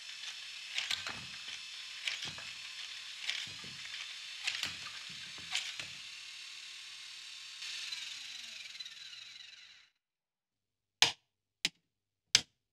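Motor-driven Lego Technic gear mechanism whirring steadily, with a knock about once a second. Near the end it winds down, falling in pitch, and stops. A few sharp clicks follow.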